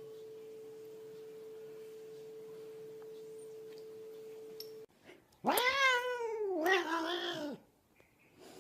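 A domestic cat meowing twice: a long, drawn-out meow that rises then falls in pitch, then a shorter, lower one. Before the meows there is a faint steady hum.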